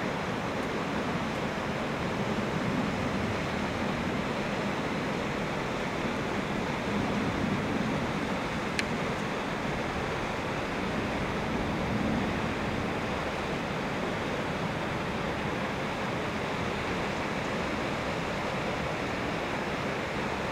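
Steady rush of water pouring from an outlet at the foot of a concrete dam, with a single brief click about nine seconds in.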